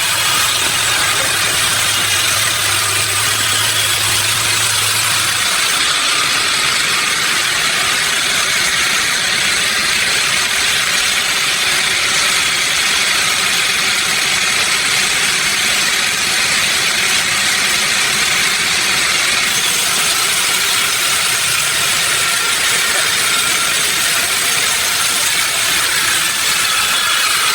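Sawmill machinery running steadily, a constant loud mechanical noise. A low hum under it stops about five seconds in.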